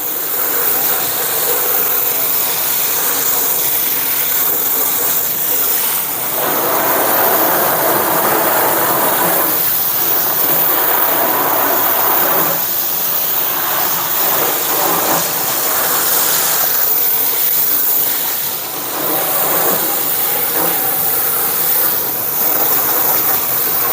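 Water spraying into a flooded gas furnace to wash out mud, a steady hiss and rattle of spray on metal that gets louder in stretches.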